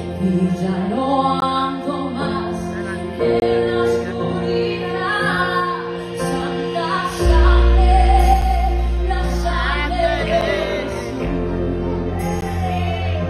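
A woman singing a Spanish-language Christian worship song into a microphone over instrumental accompaniment with sustained low bass notes, her voice holding and sliding between long notes.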